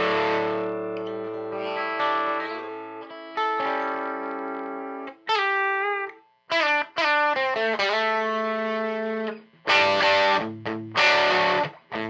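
Electric guitar, a 1955 Gibson Les Paul Junior, played through a Bell & Howell 614 AQ Filmosound projector amplifier converted into a guitar amp. Ringing chords let die away, then single-note lines with slides, then short, choppy chords stopped between strums near the end.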